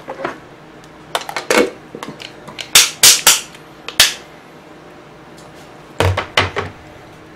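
Sharp clicks and clatters of plastic takeaway containers and chopsticks being handled at a table, in several clusters, with a few low thuds about six seconds in.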